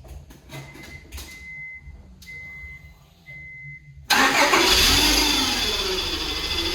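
A car's dashboard chime beeps in short, evenly spaced tones among a few clicks, then about four seconds in the 2001 Honda Prelude's four-cylinder engine suddenly starts and keeps running loudly. This is the first start after a new timing belt and a refilled, dry fuel system.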